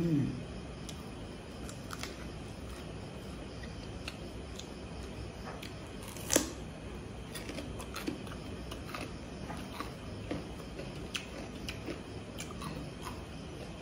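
A person eating with her fingers: quiet chewing and small mouth clicks, with one sharper click about six seconds in.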